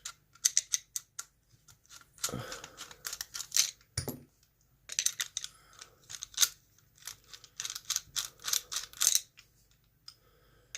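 Small metal clicks and clinks as a stainless-steel Yale K200 padlock is taken apart by hand, its parts tapping and rattling against each other in quick clusters with short pauses between.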